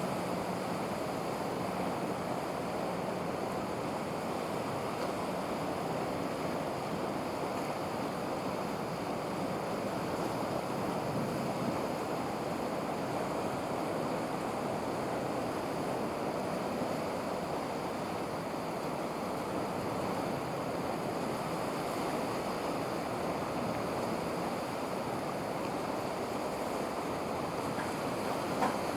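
Steady sea surf washing against an offshore rock, with wind on the microphone.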